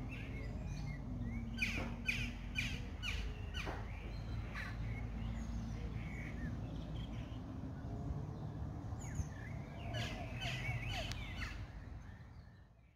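Birds calling with many short, sharp chirps, some in quick runs and some single, over a low steady background hum; the sound fades away near the end.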